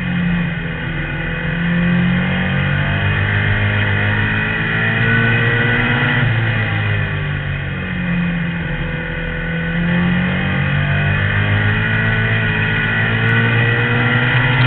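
Outlaw compact race car's engine, heard from inside its own cabin, running hard around a short oval. The engine note dips as it slows for each turn and climbs again on each straight, about every four to five seconds.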